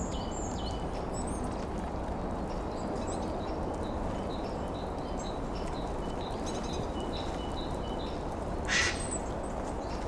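Great tits and other small tits giving short, high-pitched call notes scattered throughout, with one short harsh burst about nine seconds in, over a steady low background rumble.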